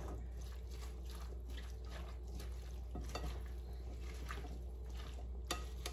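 Tuna salad being stirred in a glass bowl with a metal serving spoon: soft, wet squishing of the dressed chopped vegetables and chickpeas, with scattered light clicks of the spoon against the glass.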